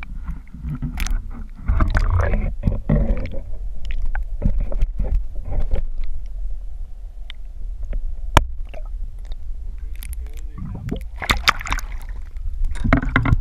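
Muffled water sloshing and gurgling around an action camera's waterproof housing as it is held under the surface, with a low rumble and scattered knocks and clicks. The sharpest click comes about eight seconds in.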